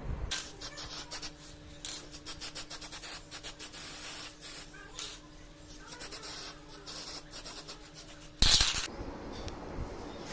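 Quick abrasive rubbing strokes on the slicer's metal, with a faint steady hum beneath. A short, loud burst of noise comes near the end.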